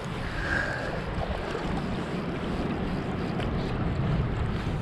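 Steady wind noise on the microphone over the wash of flowing river water.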